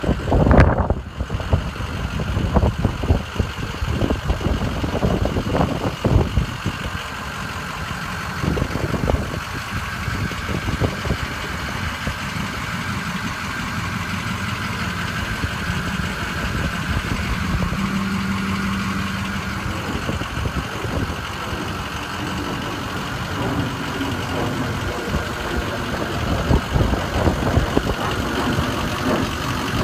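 Ford 6.0 L Power Stroke V8 turbo diesel idling steadily, with wind buffeting the microphone during the first several seconds.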